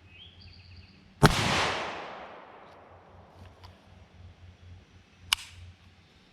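A rifle shot: one loud crack about a second in that rings out and fades over a second or so. A second, much shorter sharp crack follows about four seconds later.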